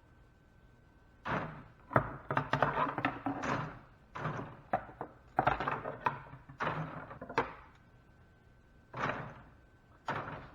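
Irregular handling noise of insulated copper wire being pulled out of plastic conduit and unwound: short rustling, scraping bursts broken by sharp knocks and clicks, with pauses between them.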